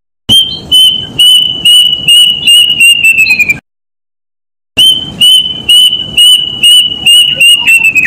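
A bird's loud whistled song: a run of clear, evenly pitched notes, about two a second, that speed up and slide a little lower at the end. The run plays twice, with a silent gap of about a second between.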